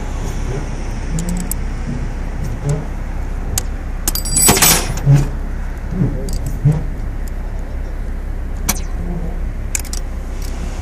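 Metal tools and hardware clinking and rattling, with a jingling, ringing clatter about four and a half seconds in and scattered sharp clicks, over a steady low rumble.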